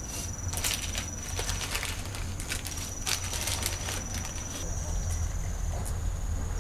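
Insect trill, a steady high-pitched tone that drops out briefly about a second and a half in and then resumes, with scattered clicks and rustles through the first few seconds.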